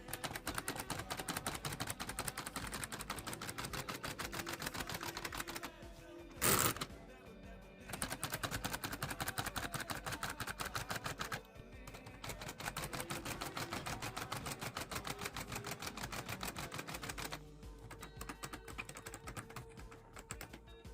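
Rapid typewriter key clacking in long runs broken by short pauses, over background music, with one louder burst about six and a half seconds in.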